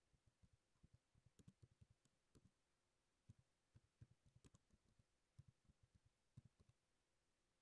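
Faint typing on a computer keyboard: quick, irregular key clicks in runs, stopping shortly before the end.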